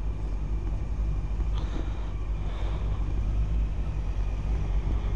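Motorcycle engine running steadily at low speed as the bike rolls slowly, a constant low hum under a light rushing noise.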